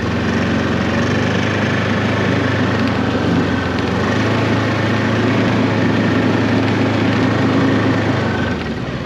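BRP Ski-Doo Tundra 600 ACE LT snowmobile's four-stroke twin-cylinder engine running steadily under throttle as the sled moves through deep snow, easing back toward idle near the end.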